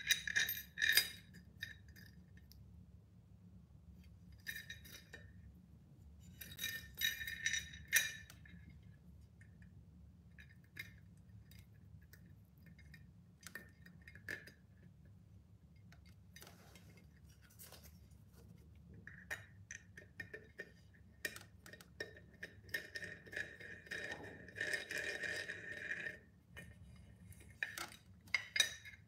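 Small metal handle parts clinking and tapping against a tempered glass pot lid while the lid handle is fitted and fastened. The clinks come in bursts, the longest and busiest stretch running from about 19 to 26 seconds in.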